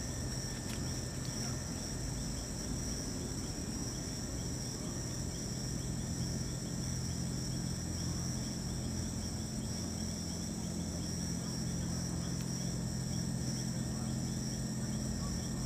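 Night insects chirping in a steady, high-pitched chorus, over a steady low hum.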